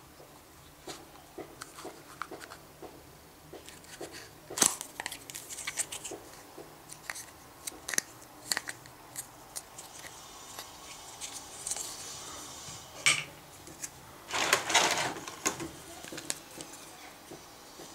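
Hands handling a plastic Play-Doh tub and a plastic mould: scattered small plastic clicks and taps, with a sharp click about four and a half seconds in as the tub's snap-on lid comes off, and a brief rubbing scrape near the end.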